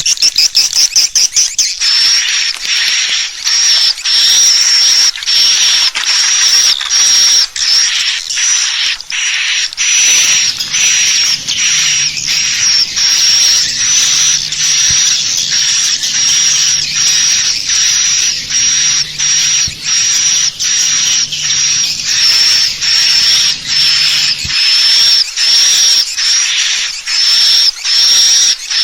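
Swiftlet lure call: high-pitched twittering chirps of swiftlets, repeated in quick runs broken by short gaps. A faint low hum sits underneath through the middle stretch.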